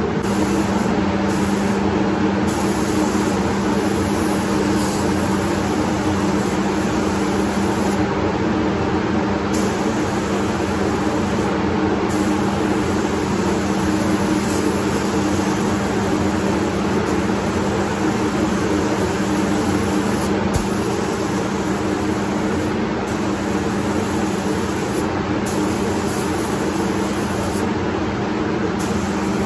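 Gravity-feed paint spray gun hissing as compressed air atomises paint, the hiss starting and stopping in stretches of a few seconds, over the steady hum of the spray booth's fans.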